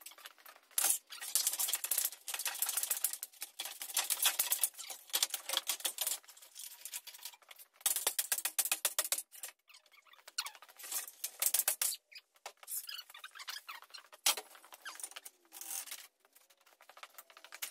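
Broom sweeping a concrete floor: bursts of rapid scratchy strokes lasting a second or a few seconds, with short pauses between them.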